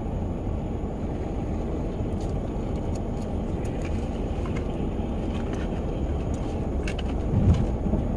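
Steady low rumble inside a parked van's cabin while it rains, with a few light, scattered ticks. A short, louder low sound comes near the end.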